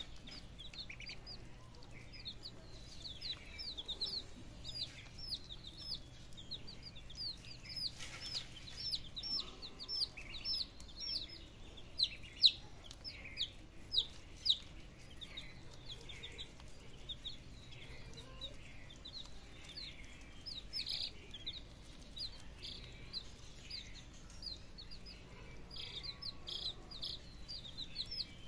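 Baby chicks and ducklings peeping: a steady run of short, high cheeps, several a second, some louder than the rest around the middle.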